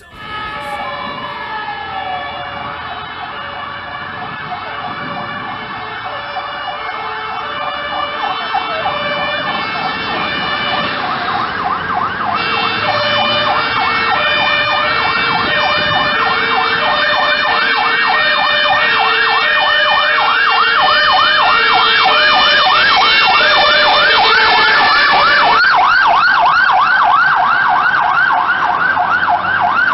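Fire brigade turntable ladder truck's sirens on an emergency run: a two-tone horn stepping back and forth over a fast electronic warble, growing louder as the truck approaches. The warble switches to a faster pattern near the end.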